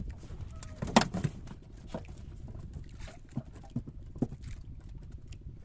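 Knocks and bumps on a small fishing boat over a steady low rumble, the loudest knock about a second in and several lighter ones after it.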